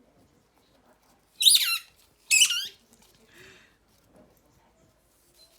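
A German Shepherd with a gobstopper ball in her mouth makes two sharp, high-pitched squeaks about a second apart, each wavering and falling in pitch. A fainter squeak follows near the middle.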